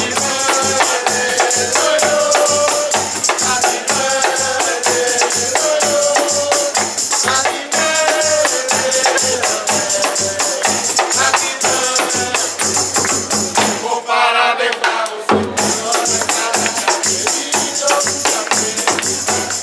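A group of servers singing a birthday song over a steady beat of jingling tambourines, a small frame drum struck with a stick and a barrel-shaped hand drum. The drum drops out briefly about fourteen seconds in, then the playing resumes.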